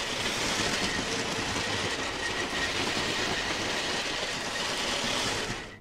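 Vintage LEGO 725 steam train's 12-volt motor running, with the locomotive and wagons rattling steadily around plastic track. The sound stops suddenly just before the end.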